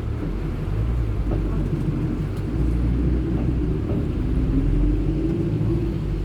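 Car driving, a steady low engine and road rumble with an engine tone rising in pitch over the last few seconds as it speeds up.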